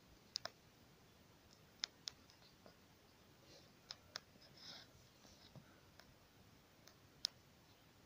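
Near silence broken by about ten faint, sharp ticks at irregular intervals, several in quick pairs, the loudest near the end.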